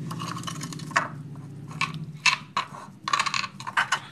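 Metal spoon stirring fried-banana batter of flour and water in a glass bowl, with irregular clicks and scrapes of the spoon against the glass.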